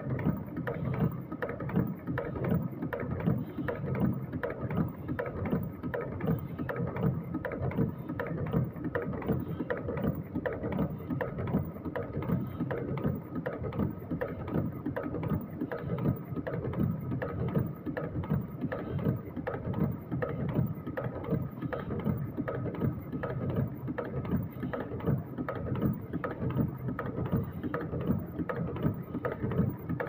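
Automatic wire-forming machine running, bending steel wire into small teardrop-shaped hooks, with a fast, even mechanical clatter that does not let up.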